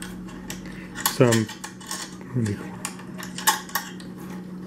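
Metal hooks clinking against stainless steel screw eyes as they are fiddled with by hand: an irregular run of light metallic clicks and rattles.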